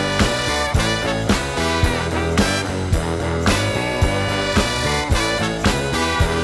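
Upbeat background music with a steady beat, about two beats a second.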